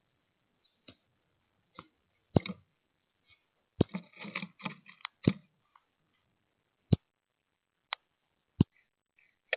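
Irregular sharp taps and knocks on a bird feeder as birds land and peck at it, with a quick flurry of taps about four seconds in.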